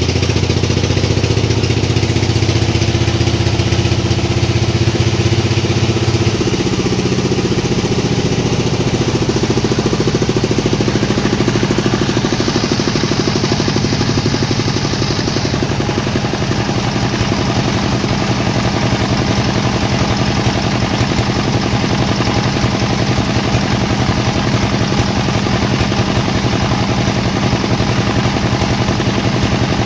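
Sawmill machinery running steadily with an engine-like drone while a dry teak log is being sawn; about six seconds in, the low hum shifts down in pitch and changes, then holds steady.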